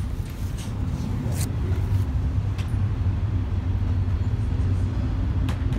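Budd RDC self-propelled diesel railcar running: a steady low rumble and hum, with a few clicks.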